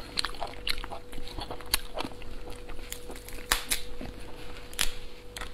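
Spiny lobster shell crackling and snapping as it is pulled apart by hand: a run of sharp, irregular clicks and cracks.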